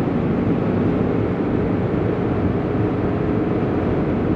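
1987 Porsche 911 Carrera 3.2's air-cooled flat-six running steadily under way, heard from inside the cabin together with road noise.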